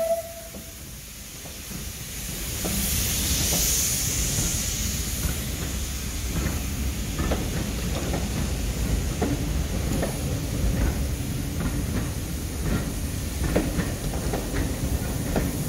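Heritage coaches rolling slowly past behind a steam locomotive: a hiss of steam about three seconds in, then a steady rumble of the bogies with irregular clicks and clanks as the wheels cross rail joints.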